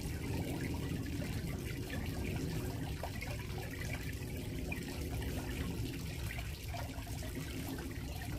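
Steady low background noise with a few faint clicks of chopsticks against a bowl while eating.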